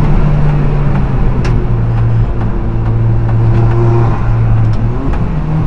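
Alfa Romeo 4C race car's turbocharged 1.75-litre four-cylinder engine running loud from inside the cockpit, over road and wind noise. Its note drops about a second in, holds steady, then rises again near the end.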